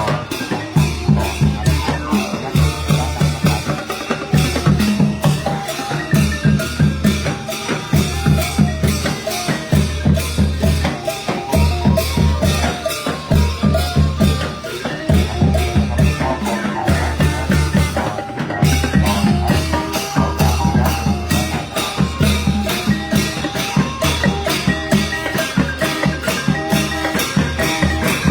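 Thai trae wong brass band playing lively procession music, with a steady, heavy bass-drum beat under the horns and a fast, busy percussion rhythm.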